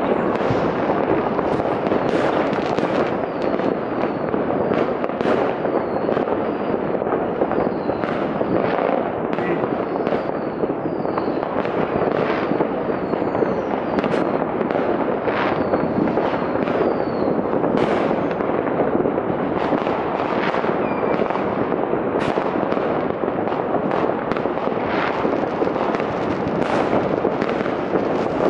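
City-wide New Year's Eve fireworks heard from afar: a dense, unbroken crackle of many firecrackers and bangs going off all at once, with short high whistles now and then.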